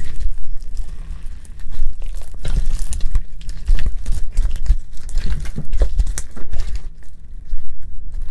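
Homemade slime being stretched, pulled apart and kneaded by hand, giving an irregular stream of sticky crackling and tearing sounds.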